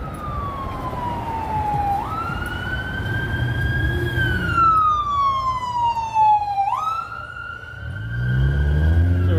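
Fire engine siren wailing: the tone slides slowly down in pitch and jumps sharply back up twice, at about two seconds and near seven seconds. A low engine rumble grows louder near the end.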